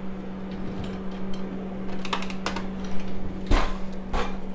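Light clicks and knocks of measuring cups and spoons being handled on a tray, with two louder knocks near the end, over a steady low hum.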